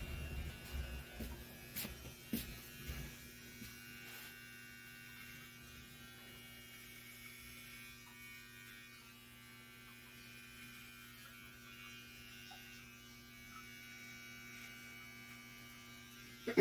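Electric hair clippers running with a faint, steady buzz, with a few light clicks in the first few seconds.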